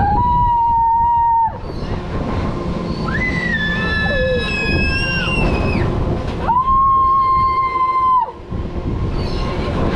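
Children on a swinging pirate-ship ride screaming in three long held screams, each one to two seconds long, the middle one higher-pitched, over a steady low rush of air and ride noise.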